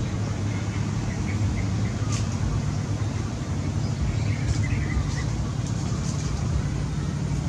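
Steady low rumble of distant road traffic, with a few faint high chirps over it.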